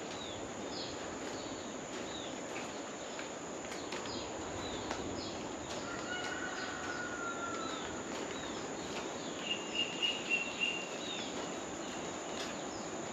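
Tropical birds calling: many short descending chirps throughout, a drawn-out whistle about six seconds in, and a held high note between nine and ten seconds, over a steady background hiss and a constant thin high tone.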